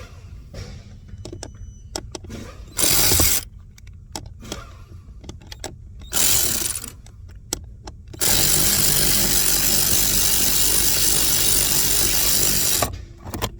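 Power drill/driver spinning out the screws that hold the blower motor: two short runs of under a second about 3 and 6 seconds in, then one long steady run of about four and a half seconds. Light clicks and knocks of handling come between the runs.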